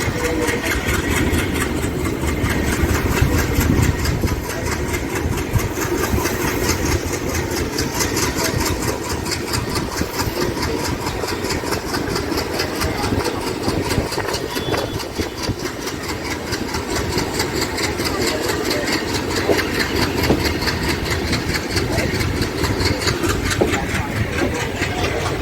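ALCO diesel-electric locomotive's engine running steadily, with a fast, even pulse to its sound.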